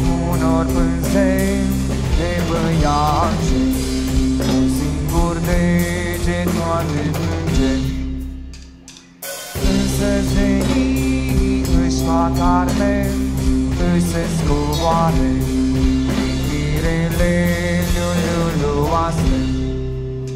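A live band plays with a drum kit, a steady bass line and a wavering lead melody. The music sinks away about eight seconds in, comes back suddenly a second or so later, and begins to fade near the end.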